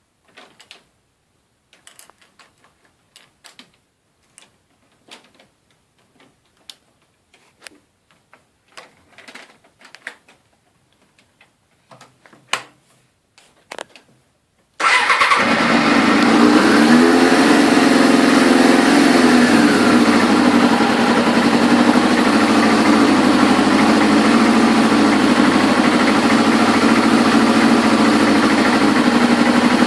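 Scattered faint clicks and knocks, then about halfway through the Suzuki RF600's engine starts abruptly and runs steadily.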